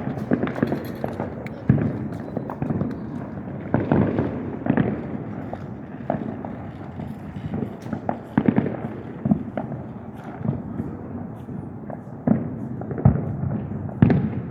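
Fireworks exploding: a steady run of irregular bangs and crackles over a continuous low rumble.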